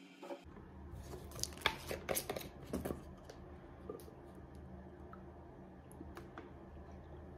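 Sharp plastic clicks and rattles from handling a fabric-softener bottle and its dosing cap at a washing machine's detergent drawer, loudest in a cluster about one to three seconds in, then a few scattered ticks, over a steady low hum.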